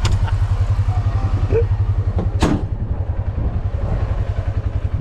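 Vehicle engine running steadily at low speed with an even, rapid low pulse, and one sharp click about two and a half seconds in.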